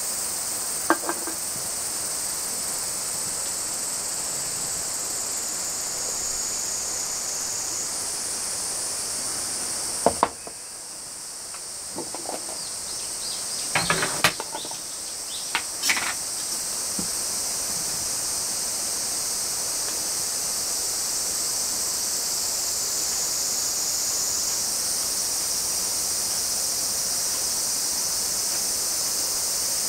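Crickets chirping in a dense, steady, high-pitched chorus, which drops away for a few seconds near the middle. A few light clinks and knocks of tableware come around the middle.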